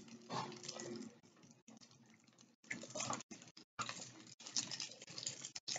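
Faint crinkling and rustling of small wrapped toffee candies being unwrapped by hand, in scattered short crackles.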